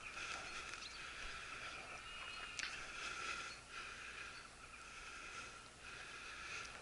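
Faint, steady jingling of a hunting dog's collar bell as the dog moves through the brush, with one sharp click about two and a half seconds in.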